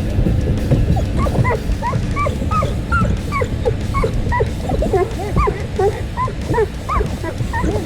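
Border Collie whining and whimpering in a rapid string of short, high-pitched rising and falling whines, several a second.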